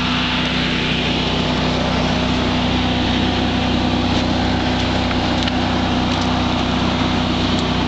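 A generator welder's engine running steadily at constant speed, with an even hum, powering the hoist of a portable skyline cable system.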